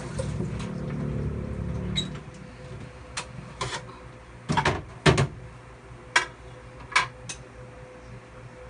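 A man snoring: one low, rasping snore lasting about two seconds. Several sharp clicks and knocks follow, the loudest about five seconds in, over a faint steady hum.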